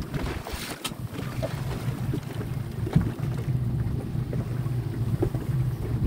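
Speedboat engine running steadily with wind buffeting the microphone, and a single sharp knock about three seconds in.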